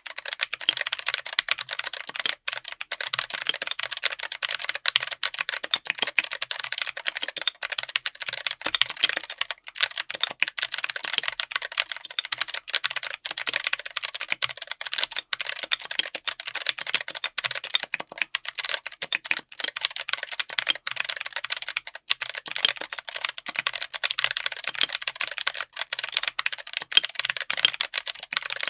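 Mechanical keyboard with Kailh BOX Autumn clicky switches (click-bar type, all-polycarbonate housings) on an FR4 plate, typed on fast and without a break: a dense stream of sharp, crisp clicks.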